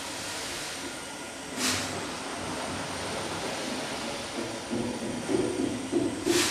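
Steam beam engine running: a steady mechanical clatter, with a short sharp hiss of steam about two seconds in and again at the very end, and heavier knocking from the moving parts in the last couple of seconds.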